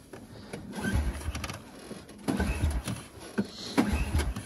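Irbis Tungus snowmobile engine being cranked over in about four short attempts that do not catch. The engine will not start, as if no fuel is getting through.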